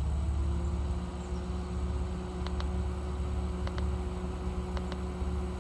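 Car engine idling with a steady low hum. Three pairs of faint short clicks come about a second apart in the second half.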